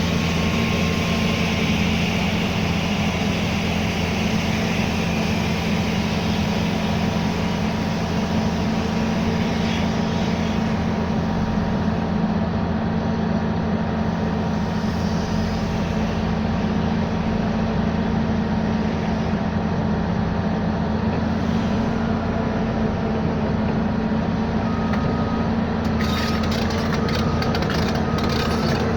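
A vehicle engine running steadily with a low, even drone. Faint short high beeps repeat near the end.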